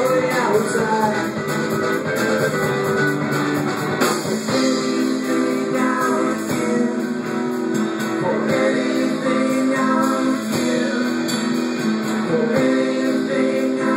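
A live rock band playing: electric guitars, bass guitar and a drum kit, with steady drum hits under held guitar notes.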